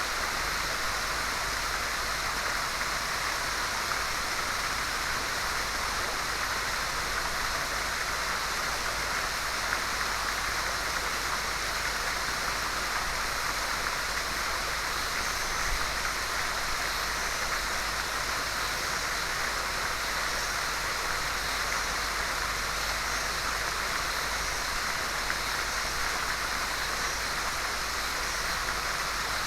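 Steady rushing of a waterfall or fast stream, an even hiss with no breaks.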